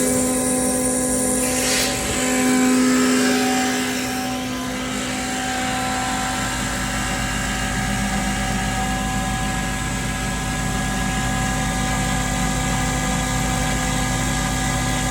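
Elgi EN 7 rotary screw air compressor running with a steady mechanical hum. About six seconds in a deeper rumble comes in and holds as the compressor builds pressure.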